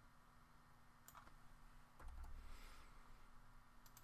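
Near silence with a few faint computer keyboard clicks.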